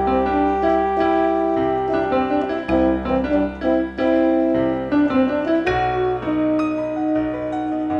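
Background music played on piano or electric piano, a gentle melody over held bass notes.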